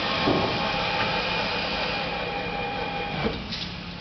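CNC acrylic bending machine running: a steady motor whine for about three seconds, then a clunk as it stops, as the machine folds a heated acrylic sheet. A low machine hum continues underneath.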